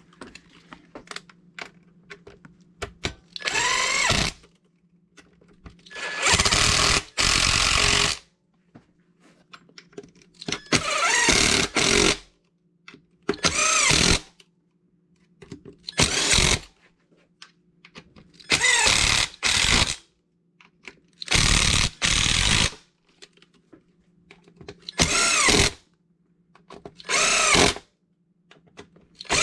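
Power drill-driver running screws into an RC truck chassis in about nine short bursts of whine, each speeding up as it starts, with quiet pauses and small clicks between bursts.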